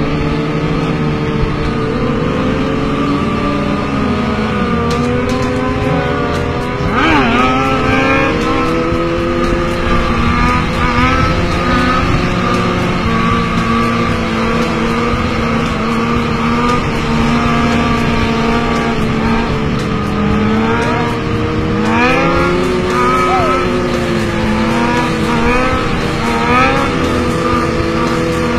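Sport bike engines running at held throttle while a rider keeps a long wheelie going. Their pitch stays fairly level, with a few quick revs rising and falling about a quarter of the way in and again in the last third.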